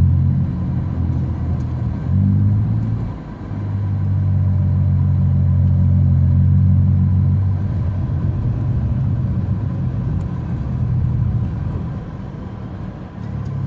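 Car engine and road rumble heard from inside the cabin while driving: a steady low drone that drops briefly about three seconds in and eases off near the end.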